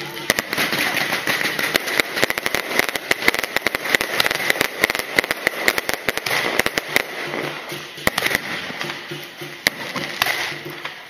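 Aerial fireworks bursting overhead in a dense, rapid string of sharp crackling reports. The cracks are thickest through the first seven seconds and grow sparser near the end.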